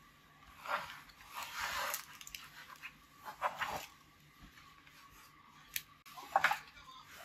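Soft rustling and shuffling as power cables and a laptop are handled and moved on a padded fabric mat, in several short swishes.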